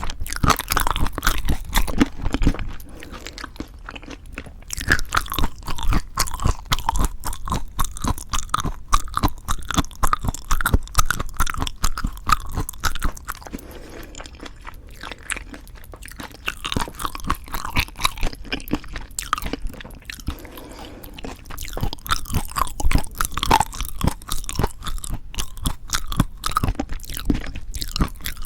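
Close-miked ASMR eating sounds: a person chewing mouthfuls of food with rapid, irregular crunching, easing off briefly a few times between bites.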